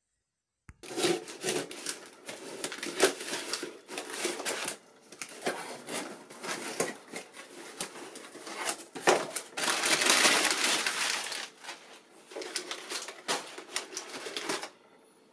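Objects being handled up close: irregular bursts of knocks and rustling noise, with a longer unbroken stretch about ten seconds in; it starts and stops abruptly.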